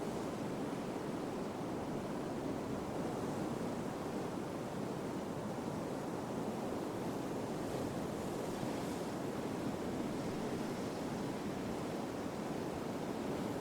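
Steady sea and wind ambience: an even wash of open-water noise with no horn, impact or scraping in it.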